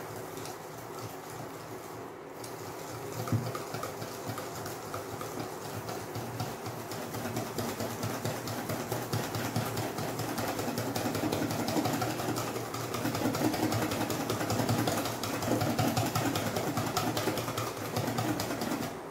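Wire balloon whisk beating a thick egg and cornflour mixture in a stainless steel bowl: a fast, steady run of scraping, clicking strokes against the metal, getting somewhat louder in the second half. A steady low hum runs underneath.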